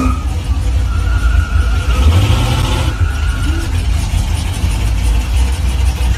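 Chevrolet Caprice convertible's V8 engine running, a steady deep exhaust rumble.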